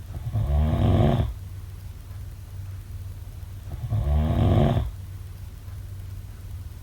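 A person snoring: two long snores, each lasting about a second and about three and a half seconds apart, over a steady low hum.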